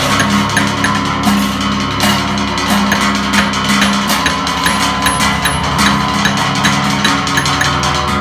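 Balinese gamelan percussion, gongs and ceng-ceng cymbals, playing a fast, dense metallic rhythm. Under it a low ringing tone repeats steadily.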